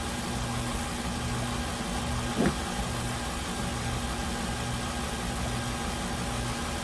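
KitchenAid Artisan stand mixer running with a steady motor hum, its flat beater turning through thick batter in a stainless steel bowl.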